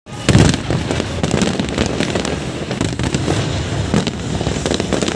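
Fireworks display going off: rapid, overlapping bangs and crackles over a continuous deep rumble, with a loud burst about a quarter second in.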